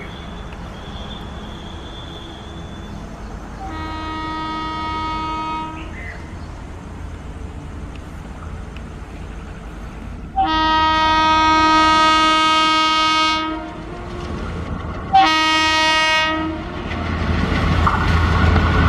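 Horn of a WDP3A diesel locomotive sounding three blasts, the middle one the longest. Near the end the low rumble of the approaching train grows louder.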